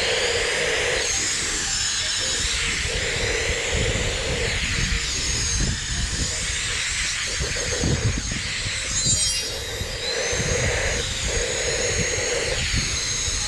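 COLBOR AirMaxx A1 cordless electric air duster running flat out, a steady rushing hiss of air as it blasts ash out of a clay charcoal brazier, with gusty low rumble of the airflow buffeting the microphone.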